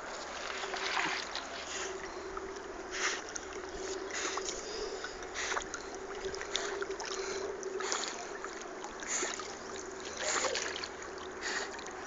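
Paddle strokes splashing in river water beside a small wooden boat, about one a second, over a steady hum.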